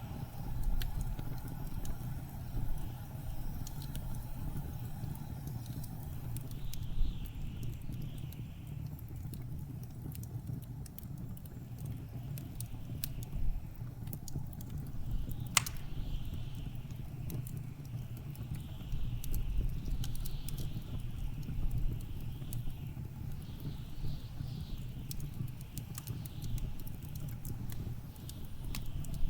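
Wood fire crackling with scattered small pops and one sharper pop about halfway through, over the steady low rumble of blizzard wind. Gusts of wind swell and hiss now and then.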